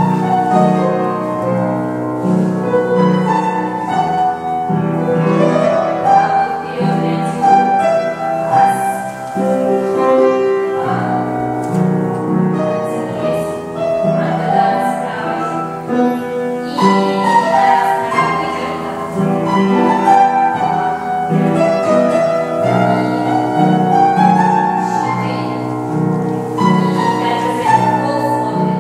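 Classical music led by piano, with a steady pulse of low notes.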